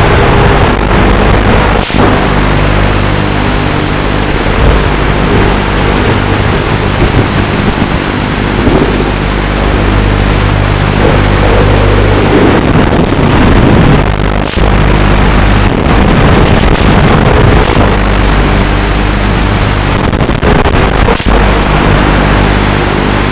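FPV quadcopter motors and propellers buzzing steadily, the pitch wavering up and down with the throttle, with wind rushing over the on-board microphone.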